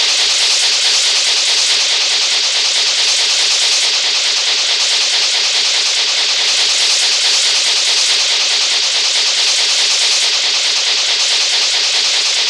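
Dragon Ball Z anime running sound effect: a steady, loud rushing hiss that holds level throughout.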